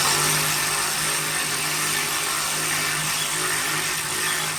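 Hand-held power gun spinning a 10 mm socket with a steady whir, backing out a rusted bolt.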